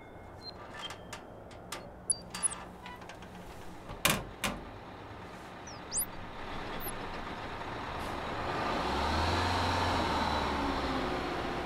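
Clicks and knocks of a metal equipment case being handled as its speaker grille panel is lifted off, with a couple of short high whistling glides about six seconds in. From about eight seconds in, a city bus pulls up and idles with a low engine rumble.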